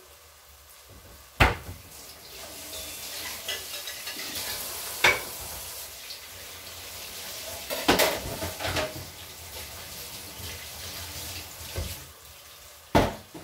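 Kitchen utensils clinking and knocking against pots and dishes, with a few sharp knocks over a steady hiss.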